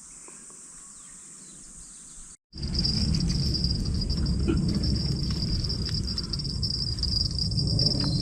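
Insects trilling steadily at night, a continuous high-pitched chorus. About two and a half seconds in the sound cuts off briefly and comes back louder, with a steady low rumbling noise beneath the trill.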